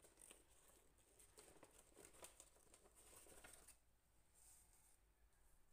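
Faint rustling and crinkling of baking paper as a sponge cake is rolled up and pressed in it, with small crackles; it dies away about four seconds in.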